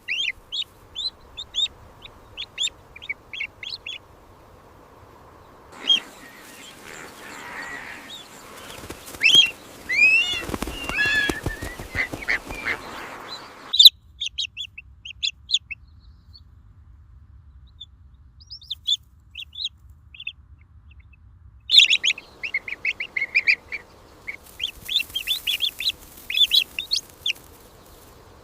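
Young chicks peeping: bursts of short, high cheeps with a few sliding calls, in several stretches that start and stop abruptly.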